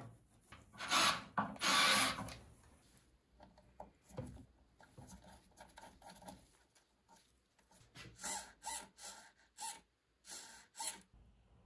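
Gloved hands working on a 3D-printed plastic clutch rig, making rustling, scraping and small knocks as an elastic band and zip tie are fitted to the servo mount. Two louder scrapes come about a second in, and a run of short rasping strokes comes near the end.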